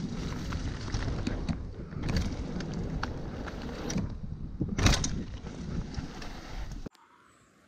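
Mountain bike rolling fast down a bumpy dirt trail strewn with dry leaves: tyre rumble with constant rattling and clicking from the bike, and one loud knock about five seconds in. The noise cuts off suddenly near the end.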